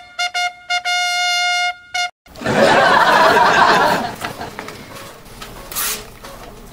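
A short trumpet fanfare: a few quick notes, one long held note of about a second, and a last short note, all on one pitch. It is followed about two seconds in by a loud burst of noise lasting under two seconds.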